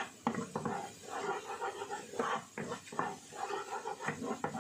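Wooden spatula stirring and scraping a thick spice paste frying in a coated pan, with several sharp knocks of the spatula against the pan among repeated rough scraping strokes.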